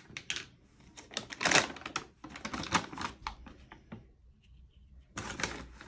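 Foil feed bag crinkling as it is handled and turned over: a run of sharp, irregular crackles, with a brief pause about four seconds in.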